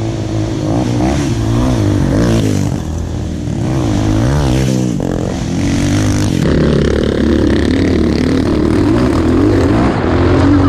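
Trail motorcycle engines revving on a dirt track, the pitch rising and falling over and over as the throttle is worked. About six seconds in, the sound switches abruptly to an engine running more steadily.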